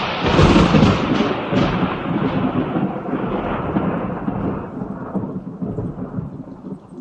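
A thunderclap: a sudden loud crack that rolls into a long rumble and dies away over about six seconds.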